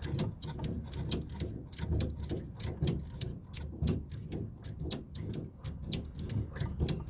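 Hand socket ratchet clicking in quick, slightly irregular runs, about four to six sharp clicks a second, as a bolt is worked in the engine bay.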